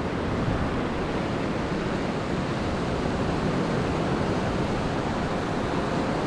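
Steady rush of wind and ocean surf.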